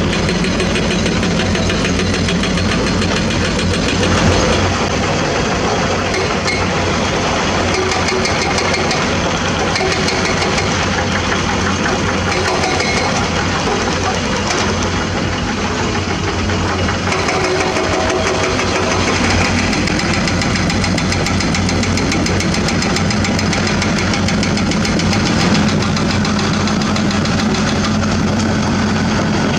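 Diesel engines of hydraulic excavators running steadily and loud at close range. The engine tone changes about 4 seconds and about 19 seconds in.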